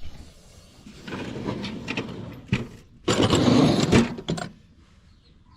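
Handling noise from metal hand tools being moved about and set down: scraping and rustling with a few sharp knocks, loudest about three seconds in.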